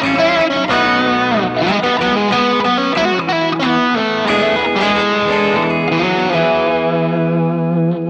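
Bacchus BTE-2-RSM Telecaster-style electric guitar played through a Nux MG-30 multi-effects modeler: quick picked notes and chord fragments, then about six seconds in a chord struck and left to ring.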